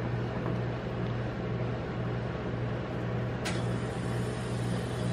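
Steady low hum of a rolled-ice-cream machine's cold plate refrigeration compressor running, with a single sharp click about three and a half seconds in.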